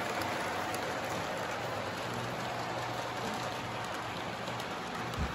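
Model train running on its track around the base of a Christmas tree, a steady hissing rumble, with a low bump at the very end.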